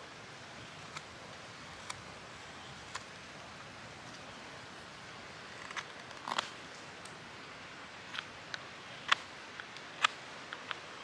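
Mora 510 carbon-steel knife whittling green sycamore: short crisp slicing cuts, at first about one a second, then a quicker run of sharper, louder cuts in the second half. A steady hiss lies under it.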